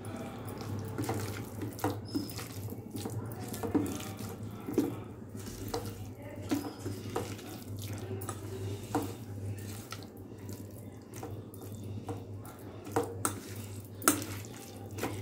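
Hand squeezing and turning marinated chicken pieces in a thick, wet spice marinade in a steel bowl: irregular squelching with scattered small clicks, over a steady low hum.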